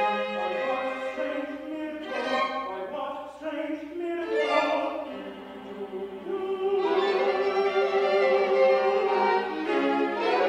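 Classical music: a violin playing with singing voices, growing louder about two-thirds of the way in and settling into long held notes.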